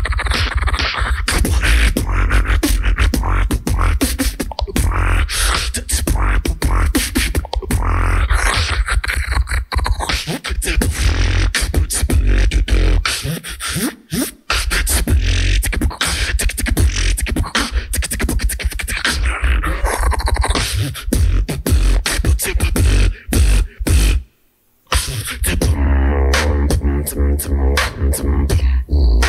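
Solo beatboxer performing a competition routine: heavy bass kicks with dense, rapid snares and clicks. Near the end the beat stops briefly, then a held, wavering bass tone follows.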